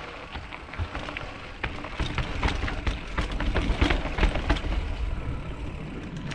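Mountain bike riding over rough trail: tyres rumbling over dirt and rocks, with many short clicks and rattles from the bike. The rattling gets louder and denser about two seconds in.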